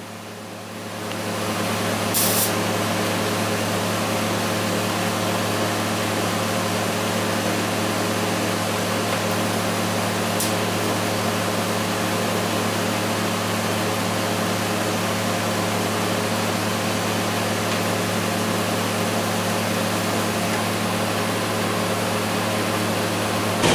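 TIG welding arc from a Miller Dynasty 200 running finishing beads at lower amperage along the edges of a repair weld on a steel front axle knuckle: a steady hum and hiss that starts about a second in, with a short crackle about two seconds in.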